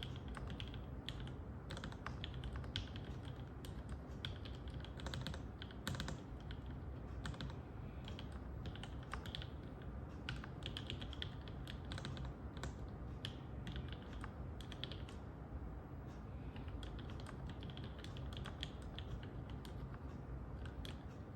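Typing on a mechanical keyboard with lubed linear Gateron Yellow milky-top switches and GMK keycaps: a continuous run of irregular key clicks and clacks, with heavier keystrokes such as the spacebar mixed in.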